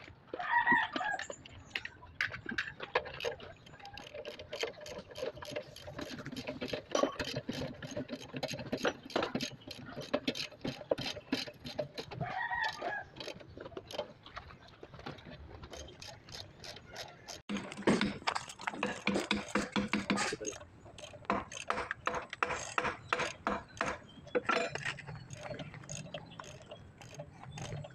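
Rapid, repeated mechanical clicking from hand-tool work on a travel-drive gearbox, thickest for a few seconds past the middle, with a few short pitched calls over it near the start and about halfway through.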